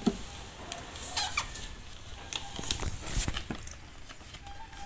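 Paper and pen handling: paper airplanes rustling and pens scratching and tapping on them in short scattered clicks, with a brief faint squeak near the end.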